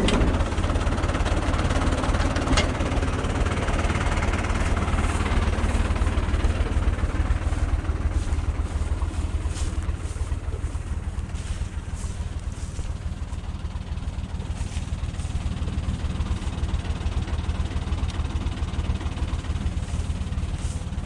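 Farm tractor engine running steadily with a low drone as the tractor tows an orchard sprayer, a little quieter in the second half.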